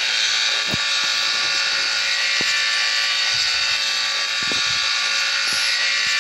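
A loud, steady whirring buzz.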